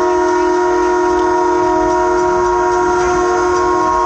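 Skunk Train's horn sounding one long, steady chord, loud and held unchanged.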